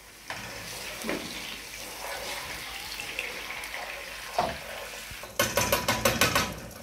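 Blended pepper paste frying in hot palm oil with onions, a steady sizzle while a plastic spoon stirs it through. Near the end comes a quick run of about eight loud scrapes and knocks as the spoon works against the pan.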